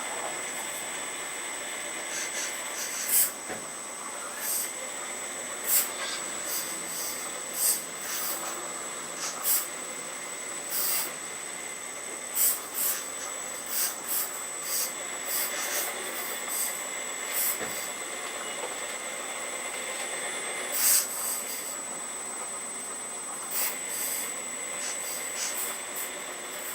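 Radio-controlled Earth Digger 4200XL hydraulic excavator working: its hydraulic pump whines steadily with a high tone, broken by short hissing bursts at irregular intervals, one or two a second.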